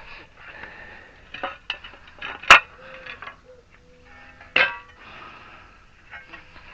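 Metal tools and parts clinking and clanking on a workbench, with two sharp metal clanks: a loud one about two and a half seconds in and a second, briefly ringing one about four and a half seconds in.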